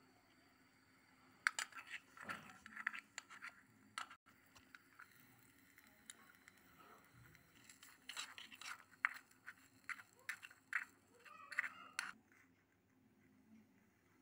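A small metal fork clicking and scraping against a miniature aluminium pot as Maggi noodles are stirred in it, in two spells of quick taps and scrapes, the first a couple of seconds in and the second near the end.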